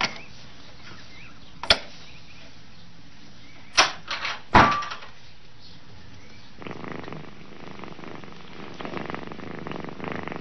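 A few sharp knocks and clatters from a cat's puzzle box, the loudest about four and a half seconds in with a brief ringing tone. From about six and a half seconds a cat purrs steadily.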